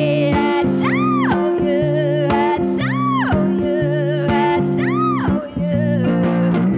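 A woman singing with her own archtop guitar accompaniment: three high sung notes swell up and fall back, about two seconds apart, over held guitar chords.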